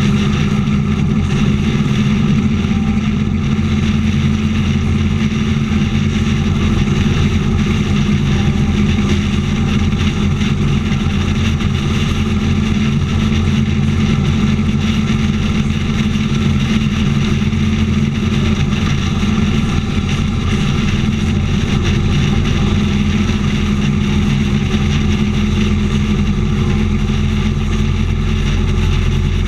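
Motorcycle engine running steadily at highway cruising speed, heard from on board the bike, with a constant rush of wind and road noise over it.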